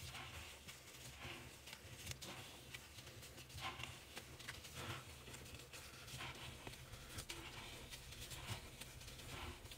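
Gloved hand scooping and squeezing a heap of powdered laundry detergent: faint, irregular soft crunching and rustling of the powder and the disposable glove.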